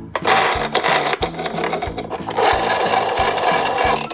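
Dense rubbing and scraping of a plastic toy garbage truck being handled, strongest over the second half, over background music.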